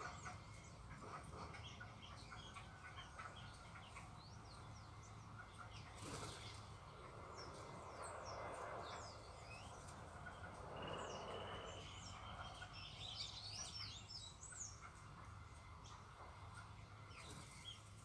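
Small birds chirping and calling in many short, overlapping high notes, faint. A little past the middle, a thin whistled note is held for about a second and a half, rising slightly.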